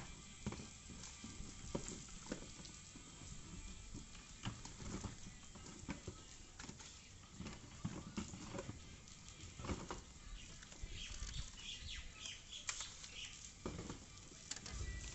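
Irregular light knocks, rustles and clatter of a plastic wet-and-dry vacuum and its ribbed hose being handled, packed into cardboard boxes and coiled up.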